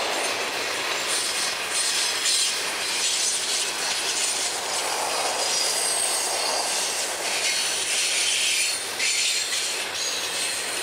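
Freight cars of a long train (gondolas and container-laden intermodal well cars) rolling past on curved track, steel wheels clattering over the rail with some high squealing. The sound eases off near the end as the last car goes by.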